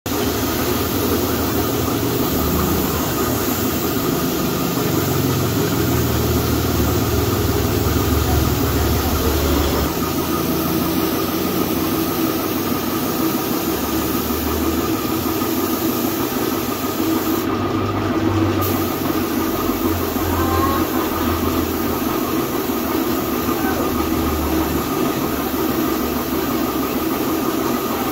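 Air compressor running steadily under the hiss of a compressed-air spray gun spraying paint. The hiss drops out for about a second a little past the middle.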